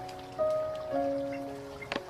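Soft background music of long held notes, with new notes coming in about half a second and a second in, over light dripping ticks of water. A sharp click comes near the end.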